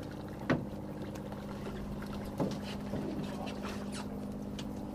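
Steady hum of a boat's engine running, with a few sharp knocks on deck, the loudest about half a second in.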